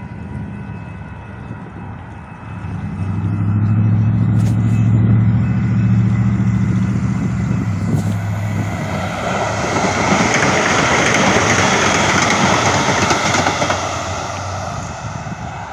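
Calgary Transit light rail train approaching and passing close by: a low hum builds about three seconds in, then the noise of the train running over the rails swells, peaks and fades off near the end.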